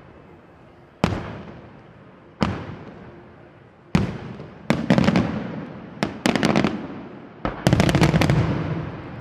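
Aerial firework shells bursting, a string of sharp bangs each trailing off in a long echo. Single reports come about a second and a half apart at first, then quick clusters of several bangs in the second half.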